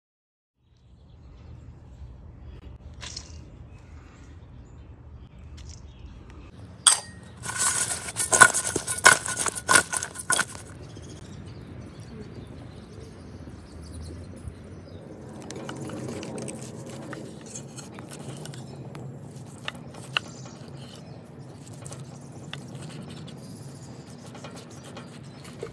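A run of loud, sharp scraping strokes with a metallic ring about seven to ten seconds in, then a chef's knife cutting through the peppercorn crust of a bone-in ribeye on a wooden end-grain board, with light clicks and taps.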